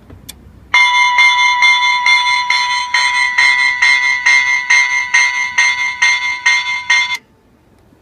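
Transtronic electronic locomotive bell on a Budd RDC railcar, ringing in steady repeated strokes about two and a half a second for some six seconds, then cutting off suddenly. This is its first test after being wired up, and it works.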